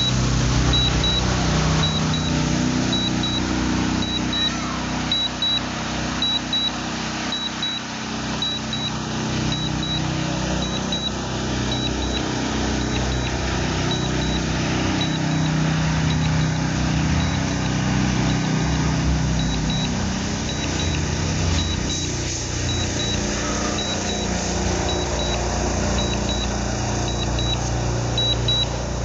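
DJI Neo 2 flight app's warning alarm: pairs of short high beeps repeating about once a second, the strong-wind alert warning that the drone is being pushed by strong wind at high altitude. A steady low rumbling noise runs underneath.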